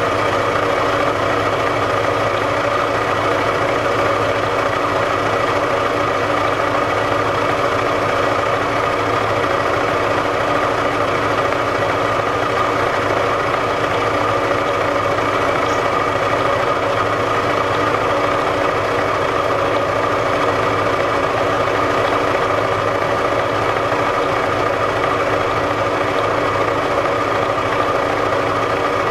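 Vertical milling machine running steadily as a drill bit is fed by hand into a muzzle brake to bore the pin hole. It makes a loud, even machine whine made of several steady pitches that does not change.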